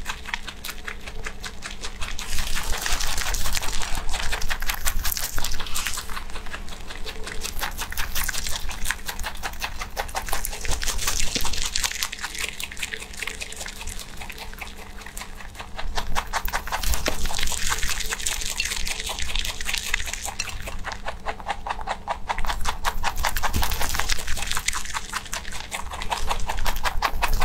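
A rabbit chewing crisp green shoots close to a microphone: fast, steady crunching that swells and eases in stretches.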